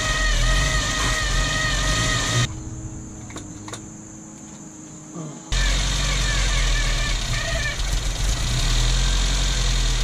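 Datsun A12 four-cylinder engine running, with a high whining, spinning noise over it that the owner puts down to the alternator or the water pump. The sound drops away abruptly about two and a half seconds in and comes back, as loud as before, about three seconds later.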